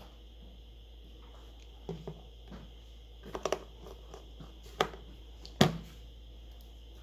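Scattered light clicks and taps of small tools and plastic phone parts being handled on a workbench, about six in all, the sharpest one about five and a half seconds in, over a steady low hum.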